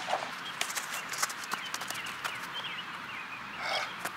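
Running footsteps on an artificial turf pitch: a string of quick, irregular light taps.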